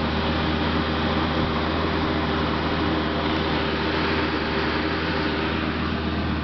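Steady mechanical hum: a constant-pitch drone under an even hiss, unchanging throughout.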